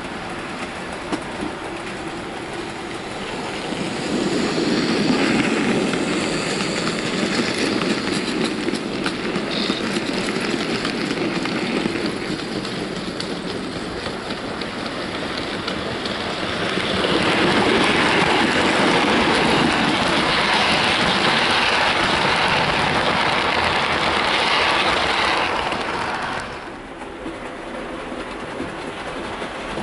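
Model trains running on the layout's track, a rattling clickety-clack of wheels over the rails. One train passes from about four seconds in; a louder one passes from about seventeen seconds and fades out abruptly near the end.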